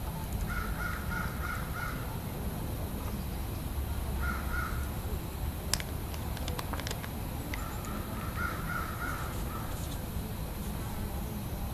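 A bird calls in three runs of short, evenly spaced notes. Around the middle come a few sharp clicks as a small jar of red acrylic hobby paint is handled and opened.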